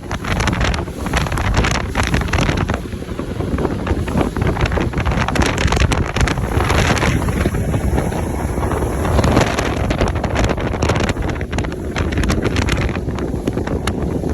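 Wind buffeting the microphone on a boat under way, a loud rough rush with irregular gusts and thumps.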